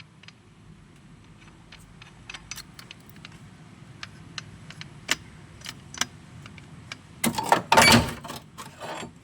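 Handling of tools and loose metal: scattered light clicks and taps, then a louder burst of clattering and rustling about seven seconds in.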